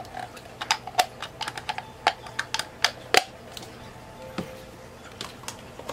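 Quick run of small plastic clicks and taps as the Eheim Everyday Fish Feeder's food drum is snapped shut and handled. The clicks come thickly for about three seconds, then only a few scattered ones.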